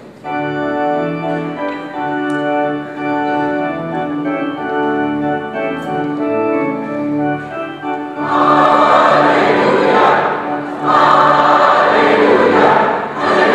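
Church organ playing held chords, joined about eight seconds in by a choir singing loudly with the organ.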